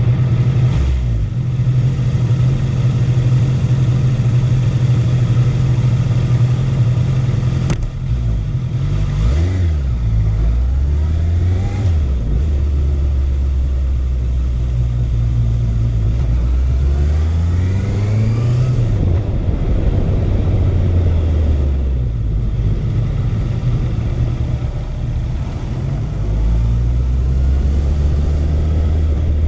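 Honda CB650F's inline-four engine running under way, holding a steady pitch, then rising and falling in pitch as the throttle is worked, about 9 seconds in and again about 17 seconds in.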